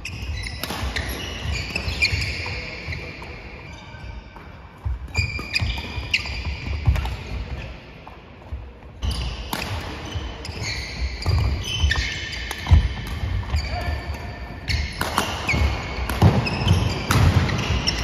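Badminton doubles rally on a wooden sports-hall floor: rackets striking the shuttlecock in sharp cracks, shoes squeaking on the court and footsteps thudding as the players lunge and recover.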